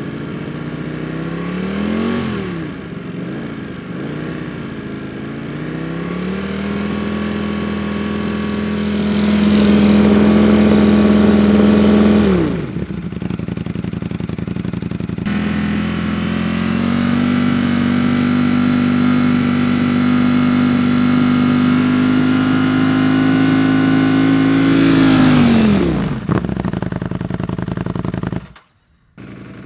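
Ducati Streetfighter V4 engine revved through aftermarket titanium exhausts for a decibel test. After a few quick throttle blips it is held steady at about 5000 rpm for several seconds and drops back to idle, then a second steady hold of about ten seconds follows and falls away the same way.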